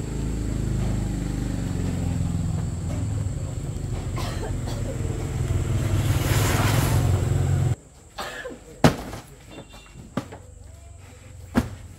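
A vehicle engine running with a steady low rumble, cutting off abruptly about eight seconds in, followed by a couple of sharp knocks.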